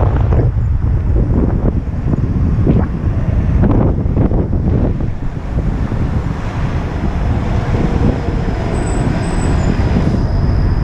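City street traffic heard while riding a bicycle, under a loud, steady rumble of wind on the helmet camera's microphone.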